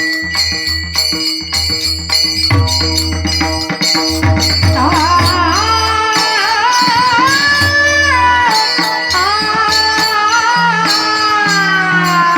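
Devotional folk singing: a woman's voice holds long, gliding melismatic phrases, coming in about four seconds in, over a steady drone with jingling cymbal-like percussion and low drum beats.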